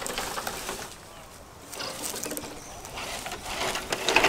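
A dove cooing, over rustling and crackling of dry brush and grass as scale RC trucks are lifted out of and pushed through it; the loudest crackles come near the end.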